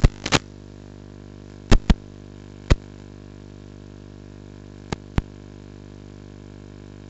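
Steady electrical hum with about seven short, sharp clicks, several in close pairs. The clicks come at the start, just before two seconds in, under three seconds in, and twice around five seconds in.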